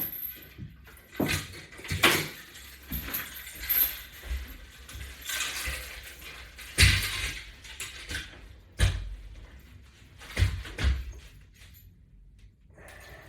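Latch Bar resistance band exercise equipment clinking and knocking irregularly while it is worked through reps, a sharp clink every second or two. The knocks fade out over the last couple of seconds.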